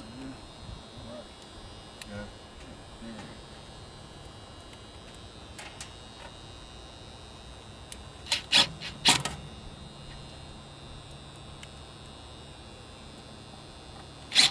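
A few sharp clicks and clatters in two short clusters, about eight seconds in and again at the very end, over a faint steady hum.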